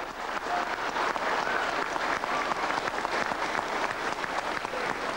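A crowd applauding: many hands clapping densely and evenly throughout.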